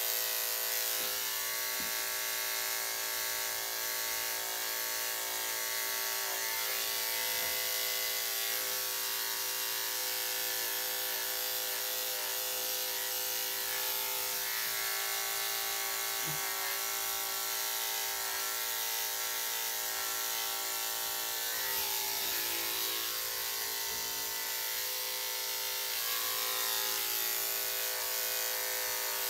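Corded electric dog grooming clippers with a #10 blade running steadily, a constant buzzing hum, as they shave the hair on a Shih Tzu's face.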